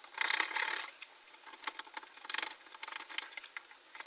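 Hand chisel cutting and scraping waste wood out of a housing (dado) joint in a stroke of scratchy chipping near the start, then several shorter strokes.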